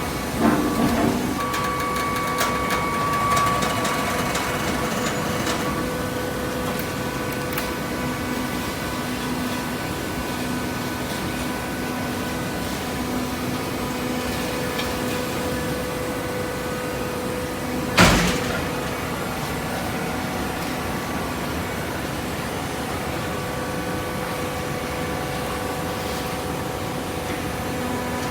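Hydraulic cardboard baler running: a steady motor-and-pump hum, with clicks and rattles in the first few seconds and a single loud bang about eighteen seconds in.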